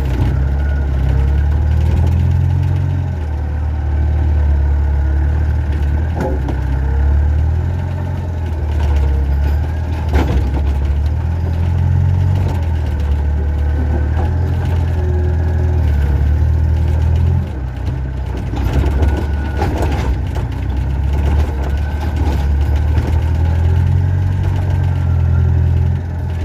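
Excavator's diesel engine running, its drone swelling and easing as the machine works, with a faint wavering whine above it and a few sharp knocks.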